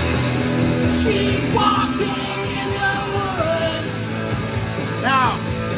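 A rock song with a singer plays; about five seconds in, the voice holds a note with a wide vibrato.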